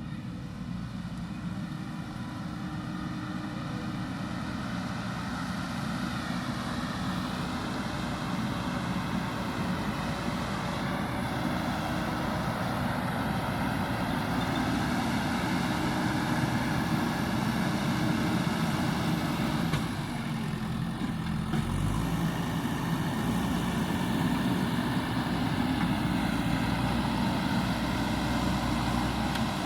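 Diesel engine of a JCB backhoe loader running steadily under work, its pitch wavering slightly now and then, and growing gradually louder.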